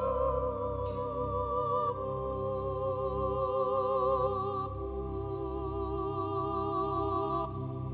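Music: long held notes with a slight waver, moving to new notes every couple of seconds.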